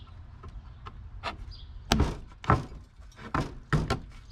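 Wooden knocks and thuds, six or seven irregular hits, as a cut piece of 2x6 lumber is set and knocked into place against a window frame; the hit about two seconds in is the loudest.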